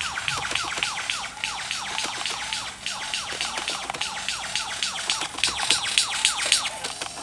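Male superb lyrebird singing his courtship display song while dancing with his tail fanned: a fast, rhythmic run of short downward-sliding notes and sharp clicks, several a second.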